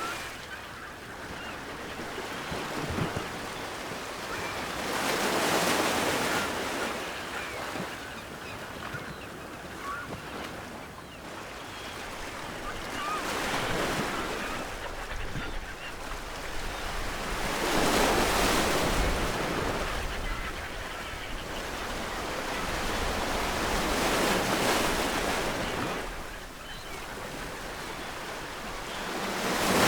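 Ocean waves breaking on a shore, the surf swelling and falling back in repeated surges every five or six seconds.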